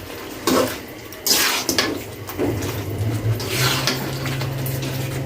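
Spatula stirring and scraping chicken pieces in a kadai while they fry in the spice paste, in strokes about a second apart, with a steady low hum starting about two seconds in.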